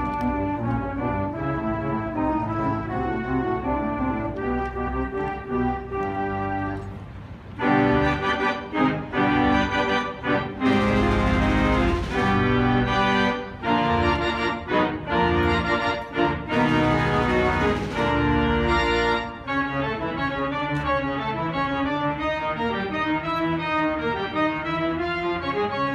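Spreckels pipe organ playing. From about eight seconds in it sounds loud full chords with short breaks between them. After about nineteen seconds it drops back to quieter, quicker-moving lines.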